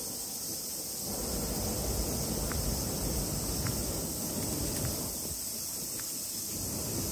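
Outdoor ambience: a steady high-pitched hiss like insects chirring, with a low rumble like wind on the microphone coming in about a second in, and a few faint scattered ticks.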